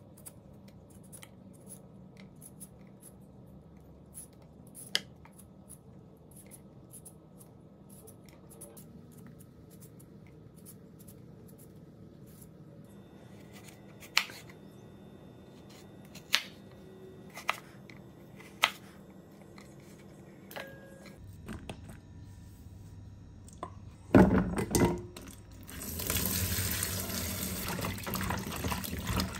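A potato is peeled with a peeler, giving faint light scrapes and clicks. A knife then cuts it on a wooden cutting board, with four sharp knocks of the blade on the board. Near the end, tap water runs into a steel sink as potato strips are rinsed in a plastic colander.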